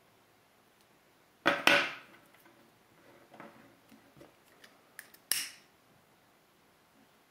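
Scissors snipping a strand end of a three-strand rope splice, two sharp cuts close together, followed by small handling clicks. Near the end a lighter's flint wheel is struck and the flame lights, ready to melt the trimmed ends.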